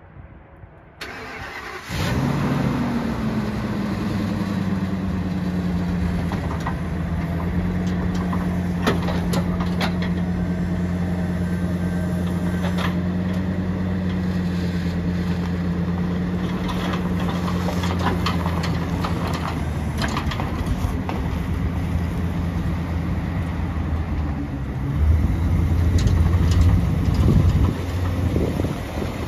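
2004 Ford F-350 pickup's engine starting about two seconds in, dropping from a brief high idle into a steady idle. A few sharp clicks and clunks come through the middle, and the engine grows louder for a few seconds near the end.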